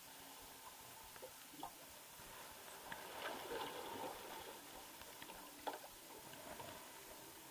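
Water sloshing and gurgling around a log-flume boat as it floats along the ride's channel, swelling for a second or so about three seconds in, with a few faint knocks.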